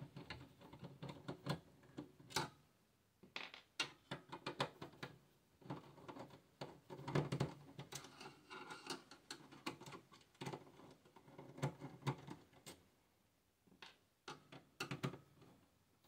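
Hand screwdriver working the screw on the metal expansion-slot bracket at the back of a steel desktop PC case: light irregular clicks and metal-on-metal scrapes with short pauses, as the bracket holding the graphics card is loosened.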